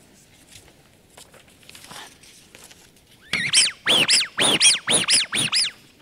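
PVC rubber duck squeezed in a quick run of about nine squeaks starting about three seconds in, each squeak rising then falling in pitch. It is a modern duck with no whistle inside, its squeak volume-limited, and it sounds comparatively quiet.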